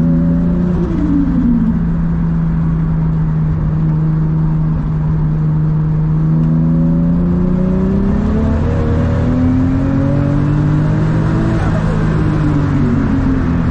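Nissan 200SX S14a's turbocharged JZ-GTE straight-six running at steady revs, then rising in pitch from about six seconds in as the car accelerates, and easing off about two seconds before the end.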